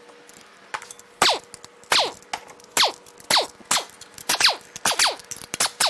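A pneumatic wrench on an air hose firing in short repeated bursts as bracket bolts are run out of an engine. There are about a dozen quick bursts, each dropping sharply in pitch.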